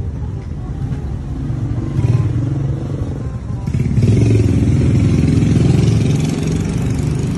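A motor vehicle's engine running with a steady low rumble, growing louder about four seconds in.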